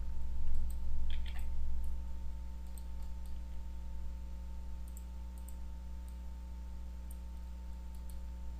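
Computer mouse clicking now and then as vertices are selected and dragged, over a steady low electrical hum on the recording.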